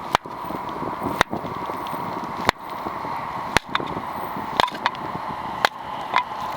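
Hultafors Scout hatchet striking wood, a sharp knock about once a second, seven or eight in all, as firewood is split into kindling. Steady wind noise underneath.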